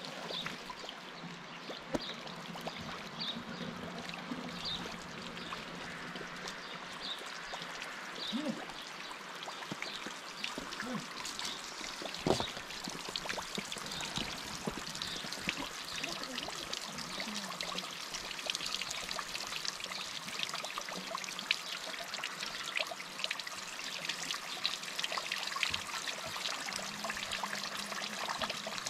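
Water from a garden hose running onto ground acorn meal in a woven basket and trickling through it: a steady pouring and dripping, the meal being leached of its bitterness. A single sharp knock about twelve seconds in.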